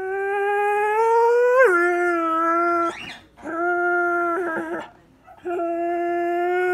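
Borzoi howling: three long, held howls with short breaks between them, the first bending sharply up in pitch and then dropping about a second and a half in.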